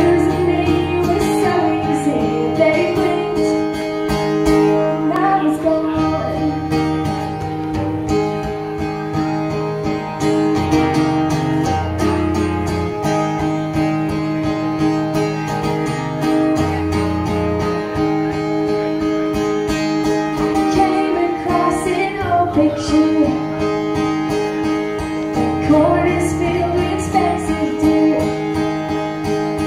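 A woman singing a song to her own acoustic guitar accompaniment, performed live through a microphone.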